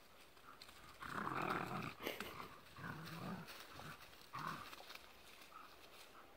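Doberman and German Shepherd making play noises while tussling over a stick, in three bursts: a long one about a second in, another around three seconds, and a short sharp one around four and a half seconds.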